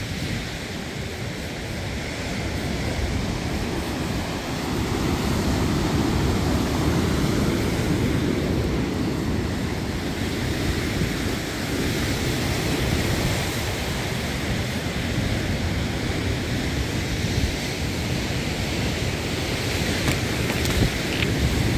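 Rough surf breaking on the beach, churned up by several days of storm, heard as a steady wash of waves. Gusty wind buffets the microphone with a low rumble, growing louder about five seconds in.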